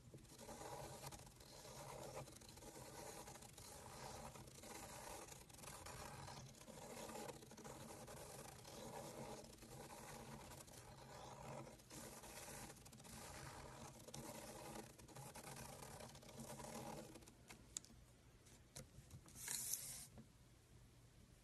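Faint scraping of a pen on paper as a clear plastic spirograph gear wheel is rolled around inside its toothed ring, the plastic teeth rubbing against the ring. It pulses in a steady rhythm, stops about three-quarters of the way in, and is followed by a short, sharper scrape near the end.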